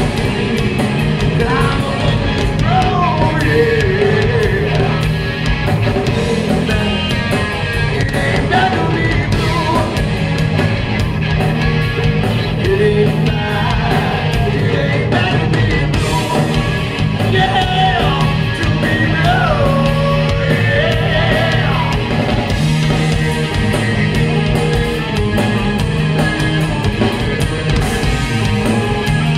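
A live rock band playing: electric guitar, bass guitar and drum kit, loud and steady. A lead line glides up and down over the band through the first two-thirds.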